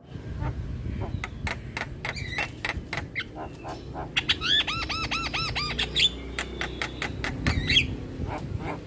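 Javan myna (jalak kebo) singing a varied song of rapid sharp clicks and chatter, with a run of about eight quick, repeated rising-and-falling whistles midway.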